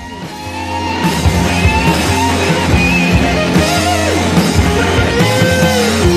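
Rock music with guitar, swelling up over the first second and then steady.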